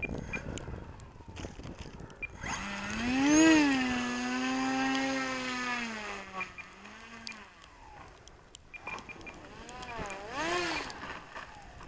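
Electric motor and propeller of an E-Flite Timber RC plane throttling up as it taxis on floats over snow: a whine that climbs quickly about two and a half seconds in, holds steady for a few seconds, then winds down, followed by a second, shorter burst of throttle near the end.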